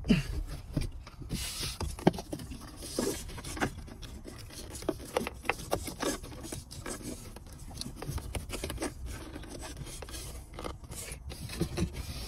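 Irregular clicks, knocks and scraping of plastic connectors and wiring harness cables being handled and pushed into the truck's dash opening behind a new radio unit.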